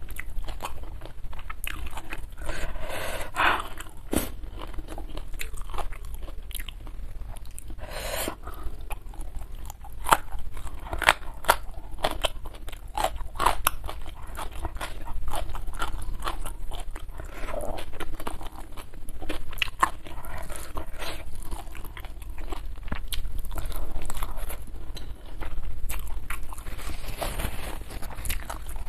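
Close-miked chewing with crisp crunching, a mouthful of rice and crunchy young jengkol beans eaten by hand. Many small crunches and wet mouth clicks follow one another steadily.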